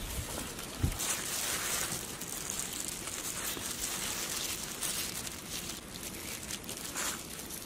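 Crackly rustling of hands in plastic gloves dredging raw chicken strips in dry flour on a steel tray, with a soft knock about a second in, over steady outdoor background noise.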